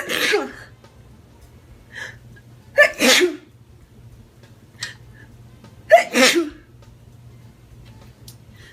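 A woman sneezing three times in a row, about three seconds apart, each sneeze sharp and loud.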